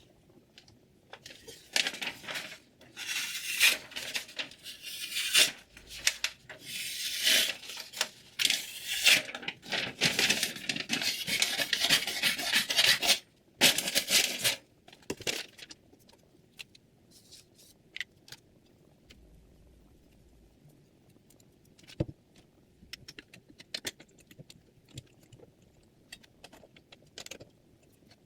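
Steel chef's knife drawn in repeated strokes across a diamond sharpening plate, a harsh hissing scrape, through the first fifteen seconds or so. After that come only light, scattered clicks and taps.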